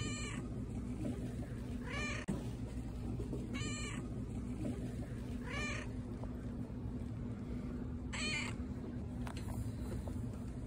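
Young tabby cat meowing: five short, high-pitched meows about two seconds apart, over a steady low hum.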